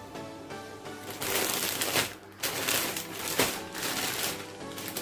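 Background music with repeated rustling and crinkling of gift packaging being handled, in several bursts of about a second each.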